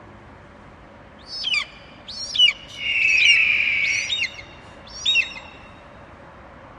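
Birds calling: a handful of short, sharp calls sweeping down in pitch, spread over the middle of the stretch, and one longer, harsher call lasting a little over a second about three seconds in.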